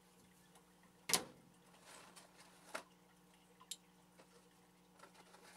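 Light knocks and clicks of hamster toys being set into a glass tank: one sharp knock about a second in, then softer clicks near three and four seconds, over a faint steady hum.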